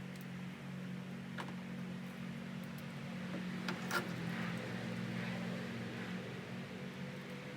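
A steady low mechanical hum in the background, with a few light clicks and taps of screws being set by hand into the fender, about one and a half seconds in and twice around four seconds in.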